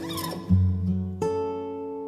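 Background music: acoustic guitar notes and chords plucked and left to ring, with a new note struck about half a second in and another a little past a second.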